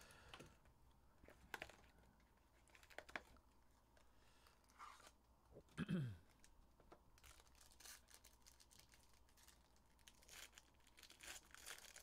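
Faint handling of trading card packaging: a sealed hobby box being cut open and foil card packs pulled out and torn open, with light clicks, scrapes and crinkling. The crinkling thickens in the second half, and a short sound falls in pitch about six seconds in.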